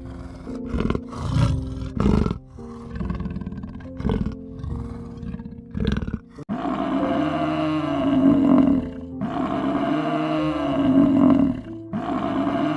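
Big cat roaring, several loud roars in the first six seconds over background music. The second half is a steadier sound with tones that rise and fall about once a second.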